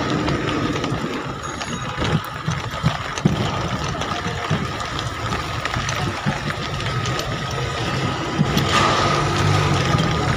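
Rain falling with vehicle engines running in street traffic on a wet road, with scattered taps and knocks.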